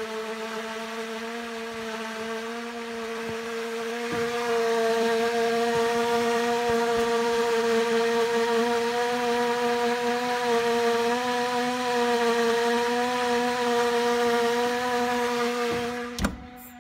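Gas range oven giving off a steady droning hum with several overtones, growing louder about four seconds in. A click comes near the end, and the hum then dies away.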